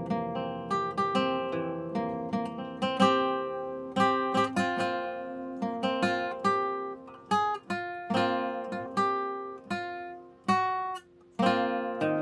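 Acoustic guitar played solo, a flowing run of plucked notes and chords that each ring and fade, with a short pause near the end.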